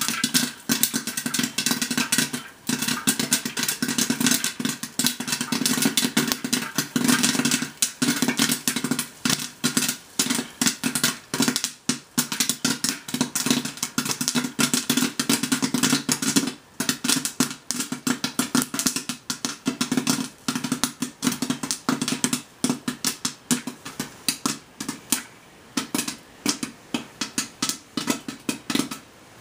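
Electric stir-style popcorn popper popping a batch: rapid, irregular pops of kernels bursting against the plastic dome over the steady hum of its stirring motor. The popping thins out toward the end as the batch nears done.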